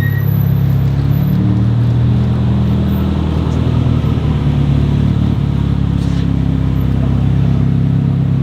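A car engine running steadily at low revs, a deep hum whose pitch shifts slightly a couple of times.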